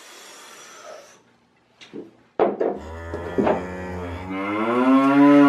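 Men reacting vocally to a tequila shot: a breathy hiss, a short pause, then a long drawn-out groan that rises steadily in pitch, with a deep low growl beneath it for part of the way. It is a reaction to the burn of the shot.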